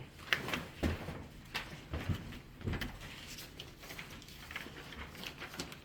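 Scattered light clicks and a few soft knocks, with no speech.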